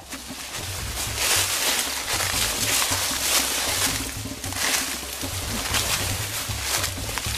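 Footsteps crunching through dry leaf litter and brush, with branches and leaves rustling as people push through thick undergrowth. It rises to a steady crackling hiss about a second in and surges and eases several times.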